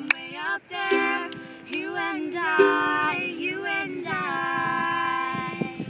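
Two women singing with a strummed ukulele, the closing phrase ending on a long held note.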